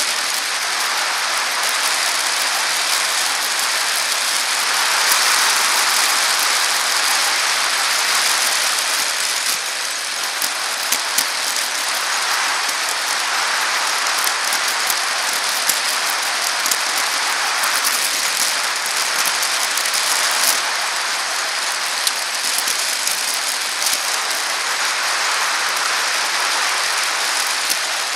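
Steady rushing noise of a bicycle riding along a paved path, tyres on asphalt and air rushing past, heard from a camera mounted on the bike. The noise swells and eases every few seconds, with a few sharp rattling clicks from bumps.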